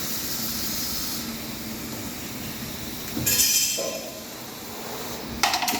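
Steady machine and air hiss at the laser cutter, with a short louder hiss about three seconds in. Sharp clicks and clattering come near the end as the cut PVC pipe is released from the rotary attachment.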